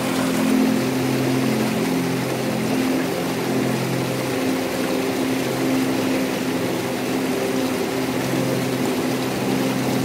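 Water rushing steadily over rocks in a cascade, with slow background music of long held low notes that change every second or two.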